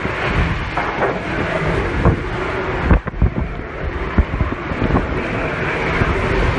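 Hurricane-force wind with driving rain: a loud, continuous roar, with heavy gusts buffeting the microphone. The level dips briefly about three seconds in.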